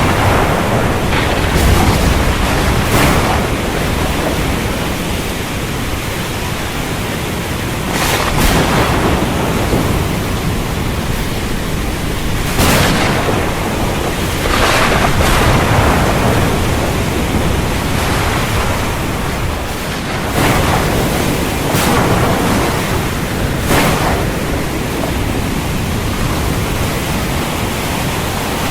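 Storm at sea: wind and heavy surf making a steady rush, with waves breaking in loud surges every few seconds.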